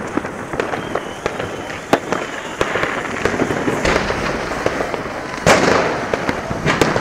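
Fireworks going off: a dense, continuous crackle of sharp pops and bangs, with a sudden louder burst of crackling about five and a half seconds in.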